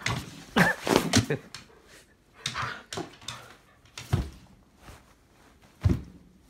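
Husky-type dog vocalizing in short, excited bursts, loudest in the first second and a half and again around the middle. Two heavy low thumps near the end.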